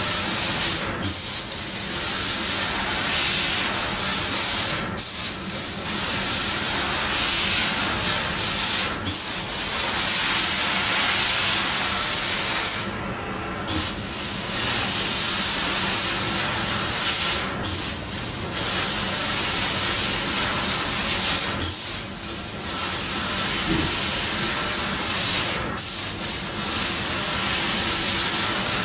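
Fiber laser cutting machine cutting steel sheet: the steady hiss of the cutting head's assist-gas jet, cut off briefly about every four seconds as one cut ends and the next begins. A faint steady machine hum runs underneath.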